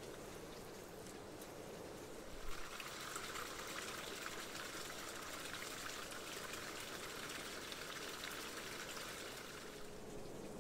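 Water pouring in a steady stream, starting about two seconds in with a light knock and stopping shortly before the end.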